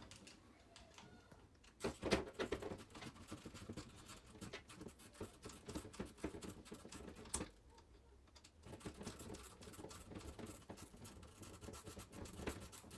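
Small clicks and scrapes of a hand tool and plastic parts being worked on an RC truck's front steering assembly, as a screw is tried with a driver. A sharper click comes about two seconds in and another past seven seconds, with faster ticking near the end.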